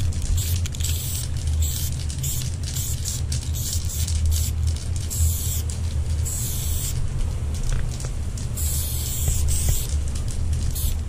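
Aerosol spray paint can hissing in repeated short bursts as a fill is sprayed on, over a steady low rumble of wind buffeting the microphone.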